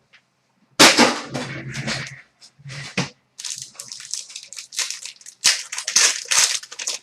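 Crinkling and rustling of a foil trading-card pack being torn open and handled, in irregular crackly bursts starting about a second in.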